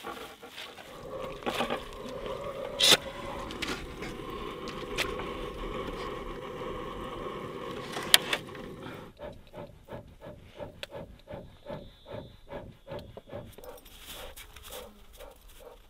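A handheld torch flame hissing steadily into a bee smoker to light its fuel, with two sharp clicks, until it stops about nine seconds in. Then a dog pants rhythmically, about three breaths a second.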